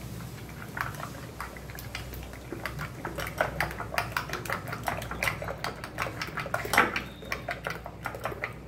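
Steel spoon beating eggs with chopped onion and spices in a glass bowl, clinking quickly and repeatedly against the glass with wet stirring. The clinks come faster from about three seconds in, with the loudest one near the end.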